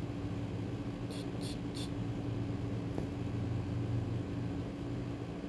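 Steady low room hum with a constant tone, like a fan or air conditioner, and three quick, evenly spaced high-pitched clicks a little over a second in.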